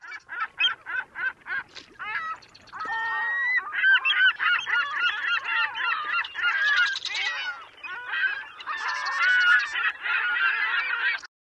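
Gulls calling: a fast run of yelping calls, then several gulls calling over one another, cutting off suddenly near the end.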